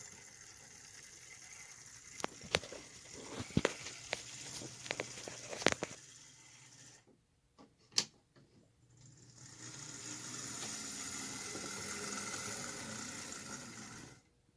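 HO scale Athearn Trainmaster model locomotive running on its track: a steady electric motor whir with several sharp clicks about two to six seconds in, stopping for about three seconds, then running again.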